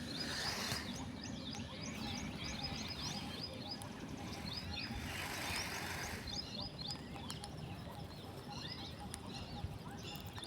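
Many small birds chirping: quick, high, short chirps repeating all through, over a steady low background rumble.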